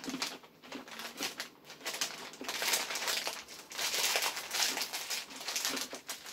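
Hard pretzels being crunched while chewed: a dense, irregular run of crackling crunches, thickest in the middle of the stretch.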